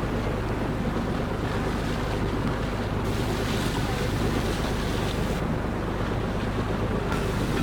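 A boat's engine running steadily with a low hum, under a constant wash of water and wind noise on the microphone.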